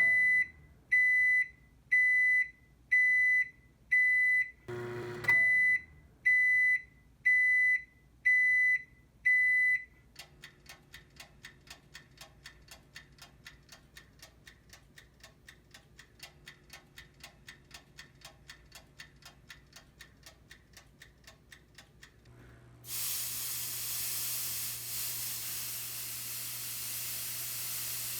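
An electronic alarm beeping ten times, about once a second, with a single thump about five seconds in. Then a faint fast ticking, several ticks a second, for about twelve seconds, and near the end a loud steady hiss of spray.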